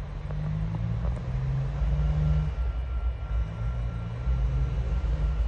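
Diesel locomotives of an approaching coal train, TasRail 2051 and 2054, a low steady engine rumble whose pitch shifts slightly as they work, with a faint steady high tone over it.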